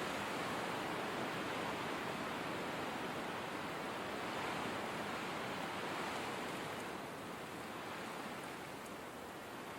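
Winter blizzard wind blowing as a steady, even rushing hiss, easing slightly about seven seconds in.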